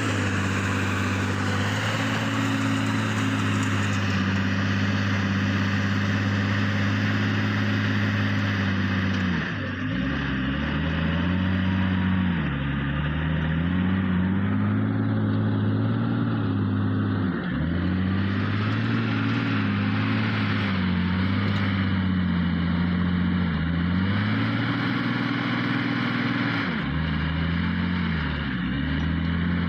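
Heavy diesel engine of an earthmoving machine running steadily. Its revs dip and climb back several times as it works under load.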